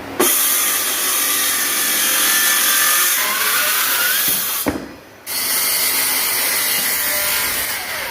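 A power tool working wood, running loud and steady, dropping away for about half a second around five seconds in, then running again.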